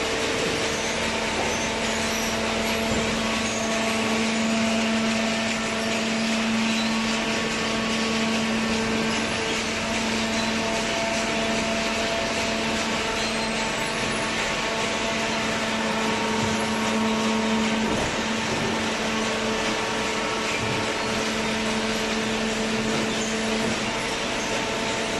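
Horizontal hydraulic cardboard baler running: a steady machine drone with a constant low hum from its motor and pump. The strongest hum tone drops away near the end while the drone carries on.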